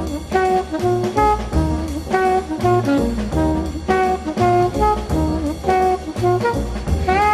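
Background jazz music: a melody of held notes over a steady bass line.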